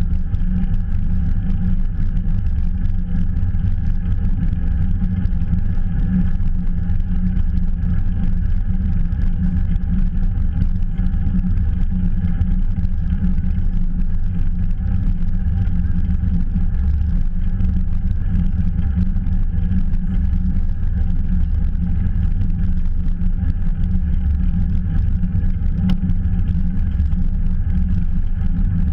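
Steady rumble of wind on a bicycle-mounted GoPro's microphone, with tyre and road noise from the bike being ridden.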